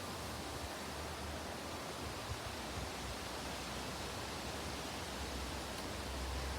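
Breezy wind blowing: a steady rushing hiss with a low rumble of wind buffeting the microphone, which grows a little stronger near the end.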